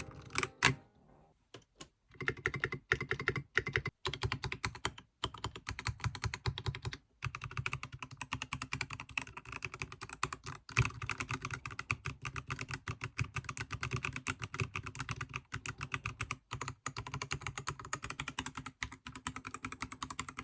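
Fast, continuous typing on a Keychron K8 Pro mechanical keyboard with yellow linear switches and black translucent ABS OSA keycaps: a dense patter of key clicks and bottom-out clacks that begins in earnest about two seconds in, with a few short pauses.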